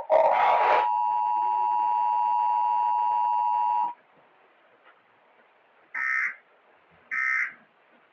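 Emergency Alert System tones. After a brief loud rough noise at the start, the two-tone EAS attention signal sounds steadily for about three seconds and cuts off. After a pause come two short buzzy data bursts about a second apart, the start of the end-of-message code.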